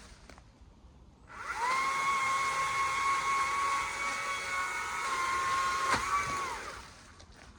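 Stihl chainsaw revving up to high speed, held there steadily for about five seconds, then easing off and winding down, with a sharp click just before it drops.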